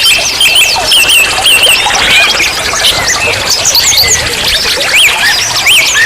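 Natural trickling stream: a steady rush of running water with a dense, unbroken chatter of quick, high chirping glides over it.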